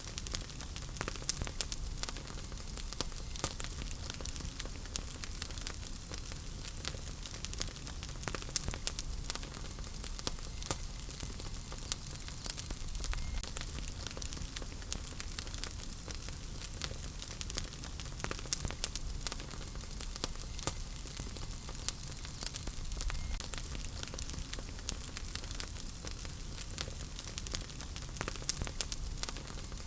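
Wood fire burning in a fireplace: frequent irregular crackles and snaps over a steady low rumble of the flames.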